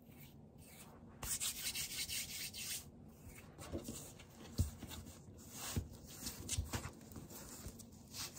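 Hands rolling and pinching soft bread dough on a floured sheet: a dry rubbing, brushing sound, loudest for a couple of seconds starting about a second in, with a few soft knocks in the middle as the dough is pressed against the board.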